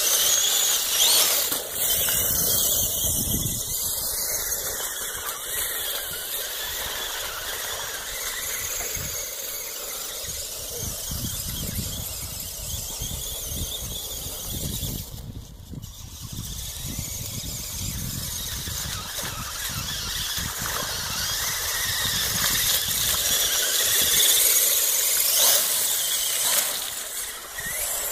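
Motors and gears of an RC Clod Buster monster truck whining as it drives through mud. The sound is steady, dips briefly about halfway through and is loudest near the end.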